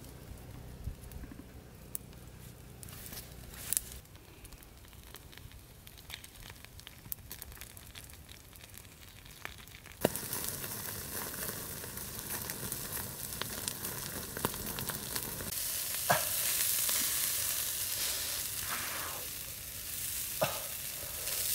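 Whole pangasius fish sizzling on a wire grill over a charcoal fire, with scattered crackles from the embers. The sizzle is faint at first, jumps louder about halfway through and swells further later on.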